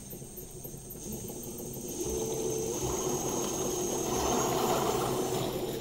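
Car alternator converted to a brushless motor, run by an electronic speed controller under RC throttle: a steady high whine with a running hum that builds over the first few seconds and eases off near the end.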